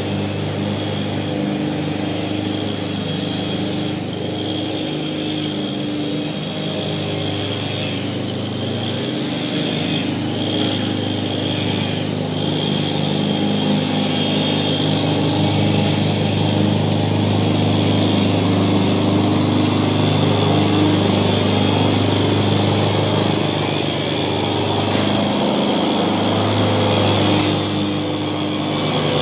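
Gas walk-behind lawn mower engine running steadily while cutting grass. It grows louder through the second half and passes close near the end.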